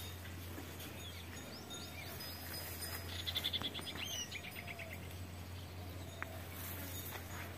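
Faint farm-field ambience: scattered high bird chirps and a short, rapid trill about three seconds in, over a steady low hum.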